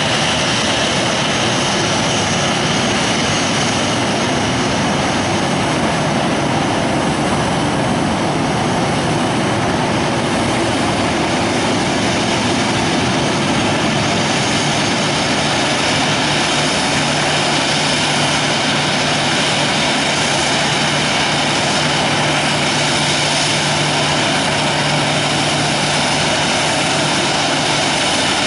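Twin jet engines of a Boeing 737 airliner running steadily at taxi power, with a low hum that comes in about halfway through.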